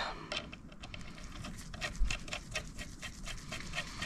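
An animal panting rapidly and evenly, about four breaths a second. A faint knock comes about two seconds in.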